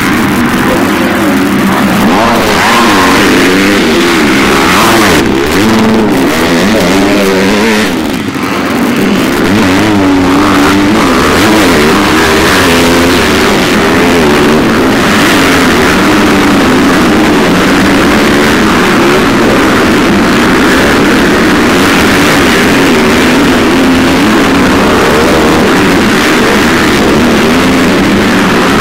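Several motocross dirt bikes racing past close by, their engines revving, the pitch rising and falling continually as they run the jumps.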